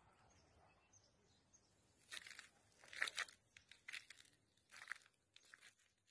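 Irregular crunching footsteps on dry rubble and charred debris, a dozen or so short steps from about two seconds in, over near-silence.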